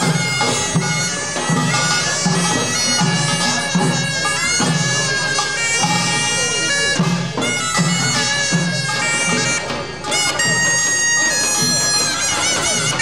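Live pungmul music: a taepyeongso (Korean double-reed shawm) plays a loud, wavering melody over a steady beat of janggu and buk drums and kkwaenggwari small gong.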